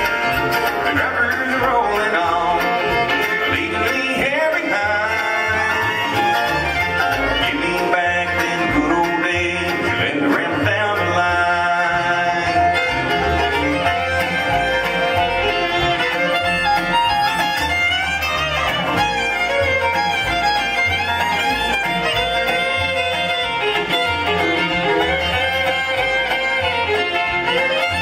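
Live bluegrass band playing an instrumental break, the fiddle prominent over banjo, guitar, resonator guitar and upright bass.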